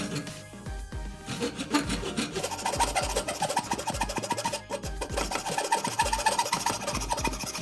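Pull saw cutting through a thin wooden beading stick, a rasp of back-and-forth strokes, with background music playing.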